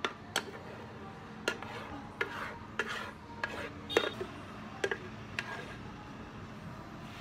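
A spatula scraping thick blended ice drink out of a plastic blender jar into a plastic cup: soft scraping with about six sharp knocks of the spatula and jar, roughly one a second.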